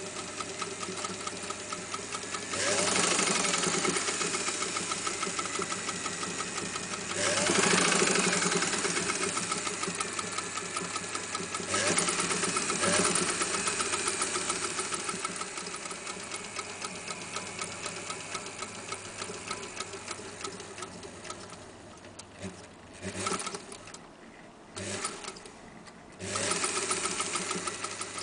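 1940 Singer 201K electric sewing machine running and stitching, speeding up twice in the first few seconds. It then slows gradually and stops and starts in short spurts near the end before running fast again.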